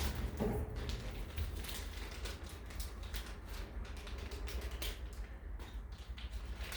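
Light, irregular clicking and rustling from handling a metal detector's parts kit, its small plastic pieces and packaging.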